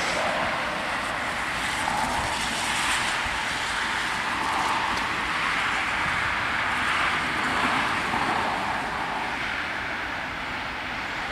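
Steady rush of road traffic, with gentle swells and no distinct events.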